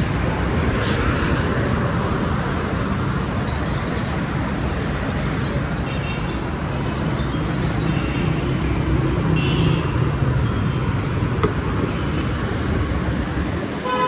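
Steady street traffic noise: a continuous low rumble of passing motor vehicles, with a few faint short tones.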